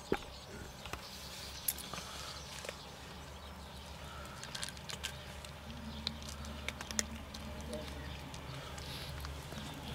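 Cats chewing dry kibble from a plate: scattered sharp crunches and clicks over a low steady hum.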